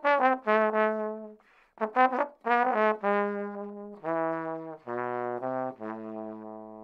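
Unaccompanied trombone playing a short phrase of separate held notes, ending on a long low note that fades away.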